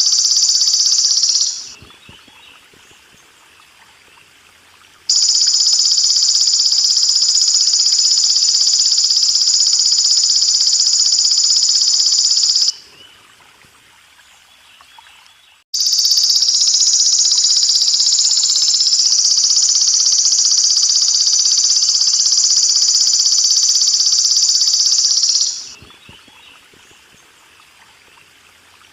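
A belalang emas insect singing a continuous high-pitched buzzing trill in long bouts of several seconds. It breaks off twice for a few seconds, about a second and a half in and about thirteen seconds in, then starts again abruptly. A faint trickle of water runs underneath.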